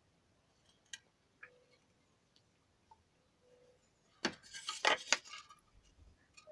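Metal tools or parts being handled. A few single clicks come first, then a short burst of clinking and clattering about four seconds in.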